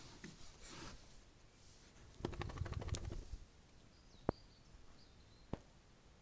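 Rustling and rubbing from a handheld camera brushing against a small shaggy dog's fur, loudest as a rapid crackle between two and three and a half seconds in. Two sharp clicks follow, with two faint high chirps between them.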